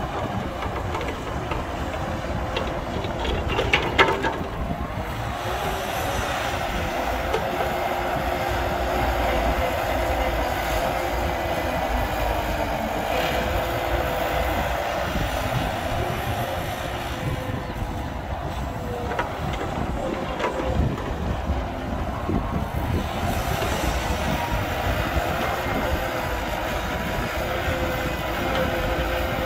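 Cat hydraulic excavator's diesel engine running under load as it dumps a bucket of soil into a dump truck and swings back to dig, with a steady whine throughout. A sharp knock comes about four seconds in.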